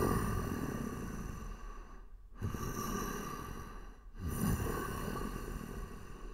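Ominous sound-design effect: deep swells, each starting suddenly and fading slowly, two of them beginning about two and a half and four seconds in, over a steady high drone.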